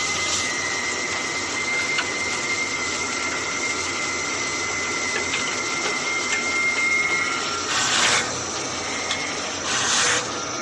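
Brake-lining drilling machine running, its belt-driven drill spindles giving a steady mechanical noise with a high steady tone. The tone stops about seven seconds in, and two short, louder rushing bursts follow about two seconds apart.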